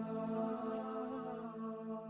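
Background music: slow, chant-like music over a sustained low drone, with held tones that shift gently.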